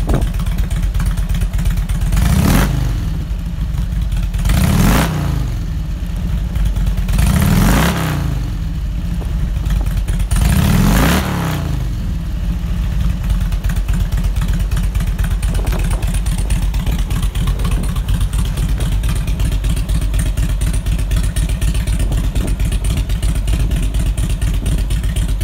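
2004 Harley-Davidson Road King Classic's Twin Cam 88 V-twin running through long fishtail exhaust pipes: four quick throttle blips, about two and a half seconds apart, in the first half, then a steady idle.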